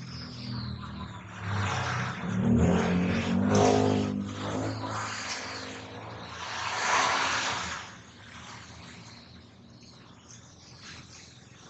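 A motor vehicle's engine running, swelling and easing off over the first few seconds, with a second swell of noise about seven seconds in. It is quieter near the end.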